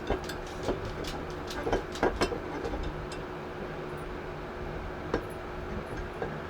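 Light clicks and knocks of the Polaris 700 RMK engine's crankcase halves and crankshaft parts being handled as the upper case half is set down over the connecting rods: a quick run of sharp taps, then one more about five seconds in, over a faint steady hum.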